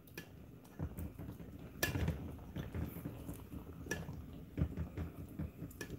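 Metal spoon scooping gravy in a metal cooking pot and knocking against it as fish is basted: soft scrapes and small clinks, with a couple of sharper clinks about two and four seconds in.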